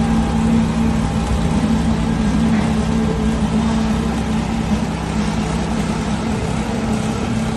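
Engine of construction machinery running steadily at an even pitch with a low hum, as concrete is poured.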